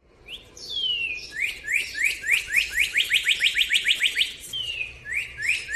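Northern cardinal singing clear slurred whistles. Long notes slide down in pitch, and a run of short rising notes speeds up into a fast series through the middle. Near the end come another down-slurred whistle and a few more rising notes.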